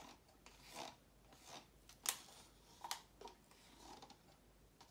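Faint scraping of a flat tool inside a plastic paint cup, scraping out the last of the acrylic paint in about six short strokes, the loudest about two seconds in.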